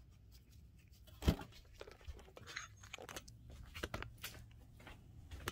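Handling noise from a metal car shifter assembly and its bolts: scattered clicks and light knocks with one sharper knock about a second in, amid rustling as the parts are picked up and carried off.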